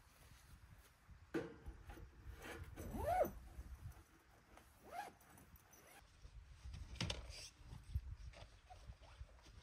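A dog whining in short whimpers that rise and fall in pitch, about three and five seconds in, with a few sharp knocks between them.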